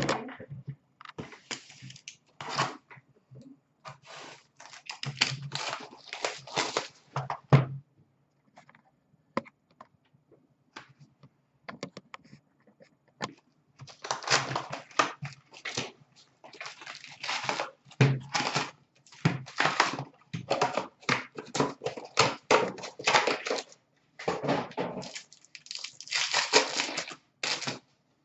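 Hockey card packs being torn open and their wrappers crinkled, with cards handled between. The tearing and crinkling comes in bursts, with a quieter stretch of a few clicks near the middle.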